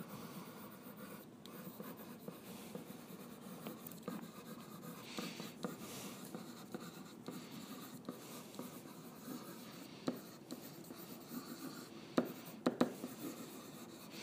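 Faint handwriting: a writing tip scratching and lightly tapping as a short sentence is written out stroke by stroke, with a few sharper taps near the end.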